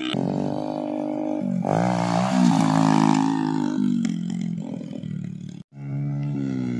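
Motorcycle engine running and revving as the bike rides along a dirt track, its pitch rising and falling with the throttle. The sound breaks off abruptly for a moment near the end, then picks up again.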